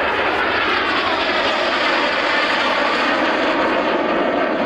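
Jet Provost trainer's turbojet engine running steadily as the jet flies past overhead.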